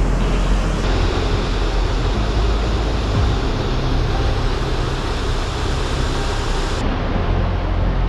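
Steady roar of falling water from Whitehorse Falls, a full even rush with a deep low rumble. The hiss on top brightens abruptly about a second in and dulls again near the end.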